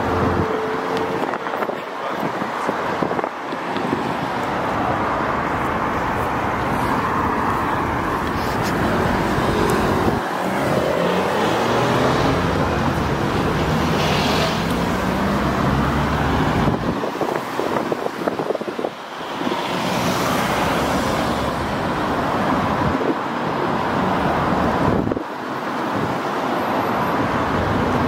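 Busy road traffic: cars and other vehicles running and passing close by, tyre and engine noise throughout, with one engine note rising and falling for several seconds about ten seconds in.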